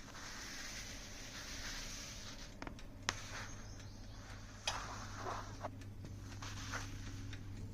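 Soft rustling and scraping, like light handling, with sharp light clicks about three seconds in and again near five seconds.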